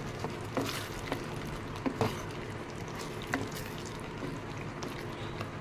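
Wooden spatula stirring paneer cubes into thick masala gravy in a pan: soft squelching with about five light knocks against the pan in the first few seconds, over a steady hiss.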